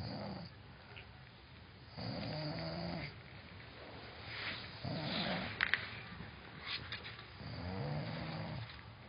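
A person snoring with a loud, pitched, throaty snore on each breath, about one every two and a half to three seconds. A couple of sharp clicks come about five and a half seconds in.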